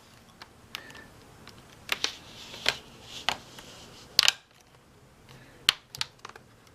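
Plastic display bezel of a Dell Latitude E5450 laptop snapping onto the screen lid as its clips are pressed in around the edges: a series of sharp, irregular clicks, about ten in all.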